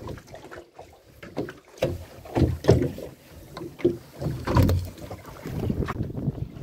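Wind buffeting the microphone on a small fishing boat at sea, with irregular knocks and thumps; the loudest come a little past halfway and about two-thirds of the way in.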